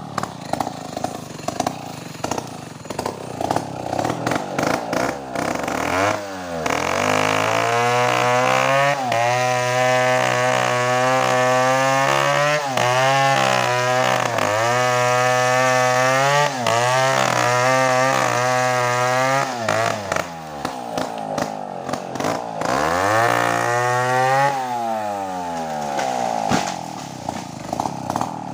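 Two-stroke chainsaw idling unevenly, then opened up about six seconds in and held at high speed, its pitch sagging again and again as it loads up cutting coconut wood. About twenty seconds in it drops back to idle, is revved once more briefly, and returns to idle.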